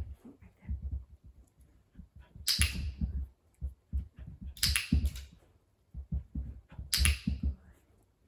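A dog's paws thudding on carpet as it jumps back and forth over a low PVC agility jump, a landing about every two seconds, each with a sharp click.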